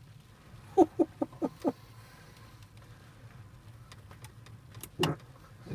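Low, steady hum of a car engine idling. About a second in come a few short voice sounds, and near the end a single brief low burst.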